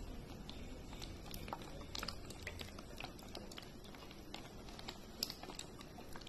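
Cooking oil poured in a thin stream from a plastic bottle into an empty aluminium pan: a faint trickle with scattered soft ticks over a steady low hum.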